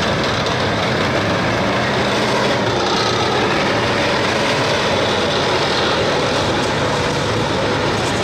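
Tanks' engines running and their tracks rolling on the asphalt street: a loud, steady mechanical din.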